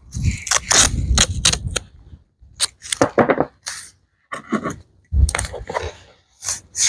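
Irregular sharp crackles and snaps of plastic seed containers and labels being handled, in short clusters, with low rumbling bumps underneath near the start and about five seconds in.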